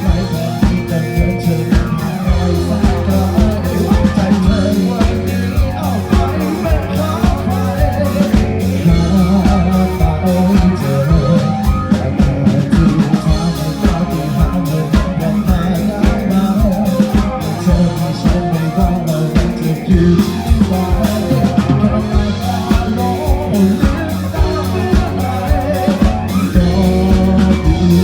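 Upbeat pop-rock song with a steady drum beat, bass, guitar and singing.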